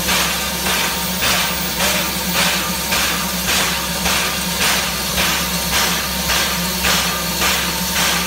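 Steam locomotive giving off rhythmic hissing puffs of steam, about two a second, over a steady low hum.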